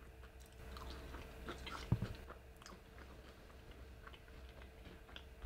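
A person chewing fried okra close to the microphone: scattered small mouth clicks and crunches, with a louder thump about two seconds in, over a faint steady hum.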